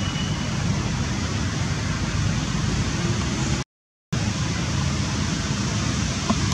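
Steady rushing outdoor background noise with a strong low rumble, cutting out to silence for about half a second near the middle.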